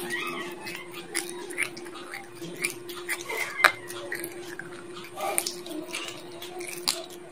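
Chicken bone being bitten and crunched between the teeth: a series of sharp cracks at irregular intervals, the loudest about a third of the way in, with wet chewing between them. A steady low hum runs underneath.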